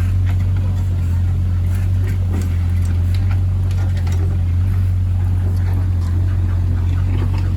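Excavator's diesel engine running steadily with a low drone, with scattered light clicks and knocks over it.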